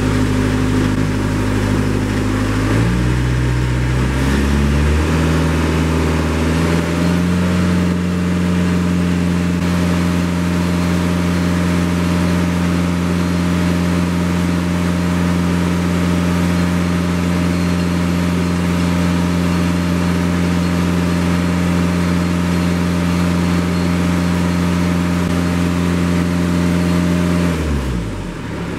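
Kubota tractor's diesel engine revving from idle up to full throttle over a few seconds, then running steady at full throttle while its 540 rpm power takeoff turns the unloaded concrete mixer, and dropping back toward idle near the end.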